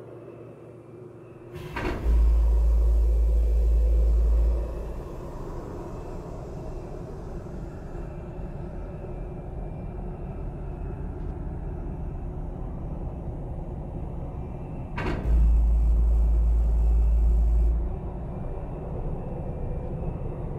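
Dark, droning sound design: a steady low rumble with hiss. Twice a sharp click sets off a deep bass boom held for about two and a half seconds, the second about thirteen seconds after the first.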